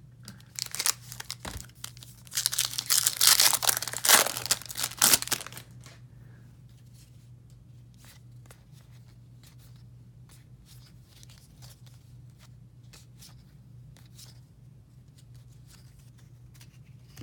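A baseball card pack's wrapper being torn open and crinkled for about five seconds. After that come only soft, scattered ticks as the cards are handled.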